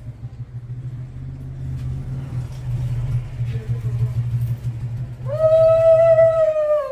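A conch shell (shankha) blown in one long note of about a second and a half near the end, sliding up at its start and then held steady, over a steady low hum.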